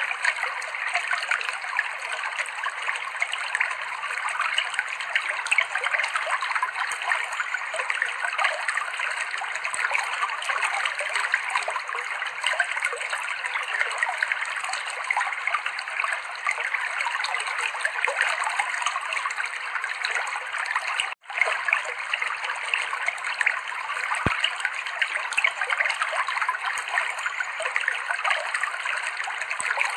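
Clear river water flowing and trickling over rocks in a steady, unbroken rush. It drops out for an instant about two-thirds of the way through.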